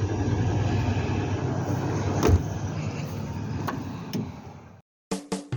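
Steady rumble of a car on the move, with a sharp thump a little over two seconds in. It fades out, and music with drums starts near the end.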